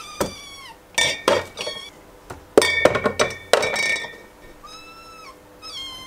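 Glass bottles knocking and clinking as they are set into a fridge door shelf, the glass ringing briefly after the loudest knocks in the middle. Between them, several short high meows that drop in pitch at the end.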